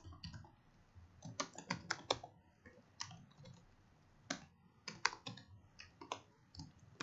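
Typing on a computer keyboard: sharp keystrokes in short irregular runs with pauses between them.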